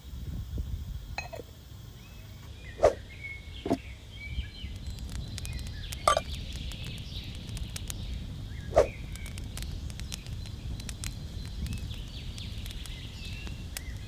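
Four sharp knocks with a brief ring, over a low steady rumble, with faint clicking and small birds chirping in the background.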